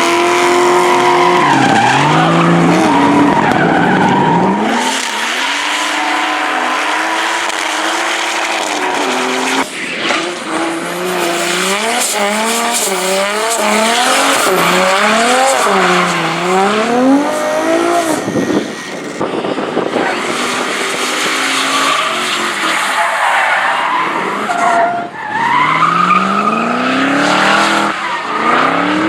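Drift car sliding through a slalom course. The engine revs up and down again and again as the throttle is worked, over continuous tyre squeal from the sliding tyres.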